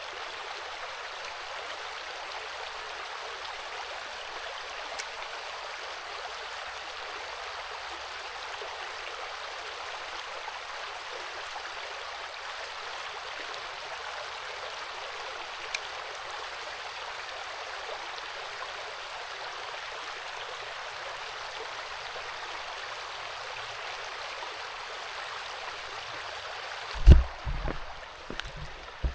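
Small creek's running water, a steady even rush. A few loud low thumps come near the end.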